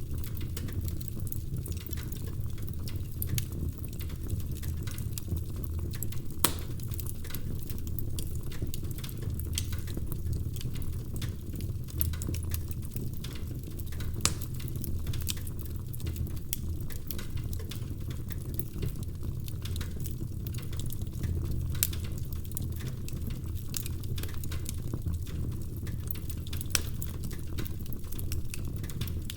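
Wood fire crackling: logs burning with a dense run of small snaps and clicks over a low steady rumble, and a few louder pops now and then.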